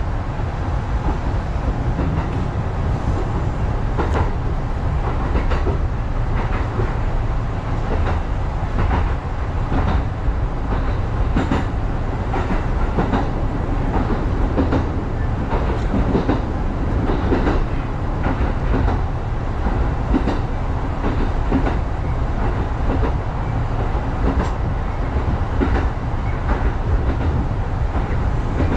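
Electric commuter train running along the track, heard from inside the cab: a steady low rumble with the wheels clicking over rail joints every second or so.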